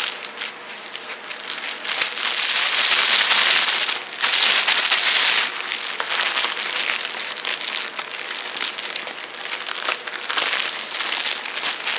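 Packaging crinkling and rustling as it is handled and opened, loudest in two stretches from about two to five and a half seconds in.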